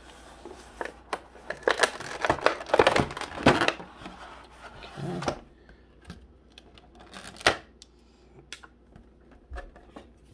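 Thin clear plastic tray insert of a trading-card box being handled and pried apart, crackling and crinkling, loudest in the first few seconds. Scattered clicks and taps follow, with one sharp click about halfway through.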